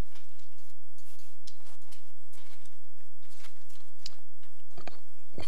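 Footsteps: a quick, regular series of soft steps across the room.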